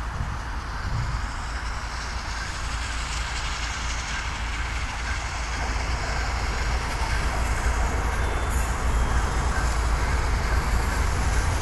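LNER A4 class three-cylinder steam locomotive, 60019 Bittern running as 4492 Dominion of New Zealand, working hard as it accelerates from a signal check. The sound grows steadily louder as the engine approaches.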